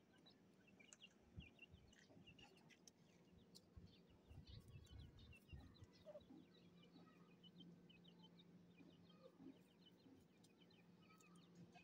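Grey francolin hen and chicks calling softly: many short, high peeps scattered throughout, faint, with a few low bumps and rumbles in the first half.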